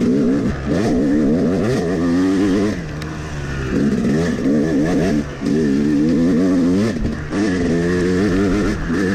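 Yamaha 250 two-stroke dirt bike engine being ridden hard, its pitch climbing and falling over and over as the throttle is worked through the gears. It eases off briefly several times, about three, five and seven seconds in.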